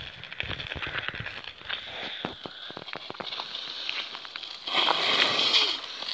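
Irregular crunching and crackling of footsteps and a walked bicycle on packed, icy snow, with a louder rasping stretch about five seconds in.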